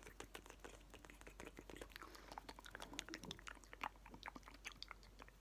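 ASMR mouth sounds: soft, quick, irregular wet clicks and smacks made close to the microphone.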